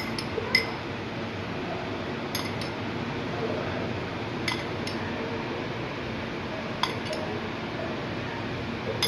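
A metal spoon clinking lightly against dishes, short pairs of taps about every two seconds, over a steady low hiss.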